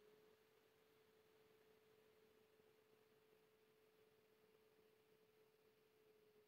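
Near silence with a faint, steady single tone.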